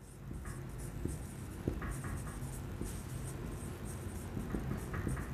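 Dry-erase marker writing on a whiteboard: faint scratchy strokes and small ticks as letters are formed, over a low steady hum.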